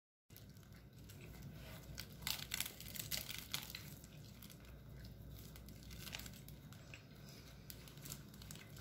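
Plastic film wrapper of a triangle kimbap crinkling and tearing as it is pulled open by hand, with the sharpest crackles about two seconds in and again around six to seven seconds, over a low steady hum.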